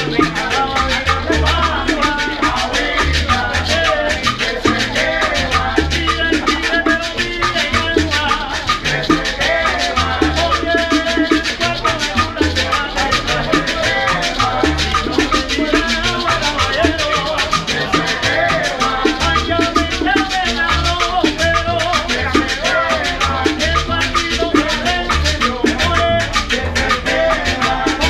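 Salsa music with a steady, pulsing bass beat and busy percussion.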